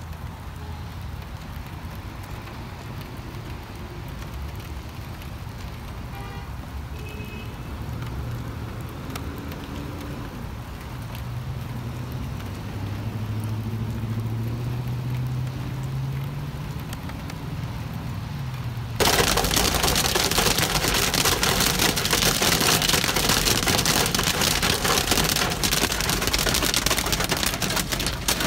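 A low vehicle rumble, with engine tones drifting up and down in pitch. About two-thirds of the way through it cuts suddenly to a loud, steady hiss of heavy storm precipitation pelting down.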